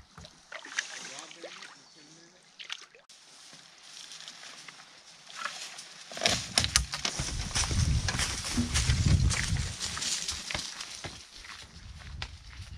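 Water sloshing around an aluminium canoe as it glides in to shore, then clunks, knocks and rustling as packs and the canoe are hauled out and carried through the woods, loudest about two-thirds of the way in.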